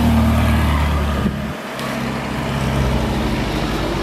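Ferrari California T's twin-turbo V8 running at low revs as the car drives slowly past and away. The engine note drops briefly about a second and a half in, then picks up again.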